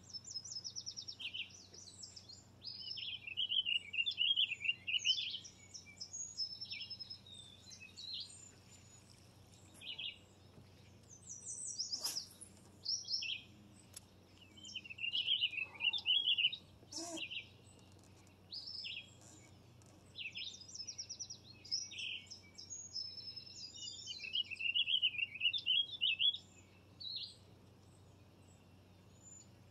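Birds singing and calling: a continuous mix of chirps, quick repeated notes and warbling trills. There is one sharp click partway through.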